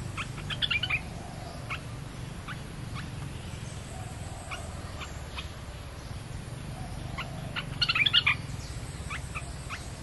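Olive-winged bulbul song: two short bursts of quick bubbly notes, about half a second in and again near eight seconds, with scattered single chirps between. The song is played as a lure for wild bulbuls.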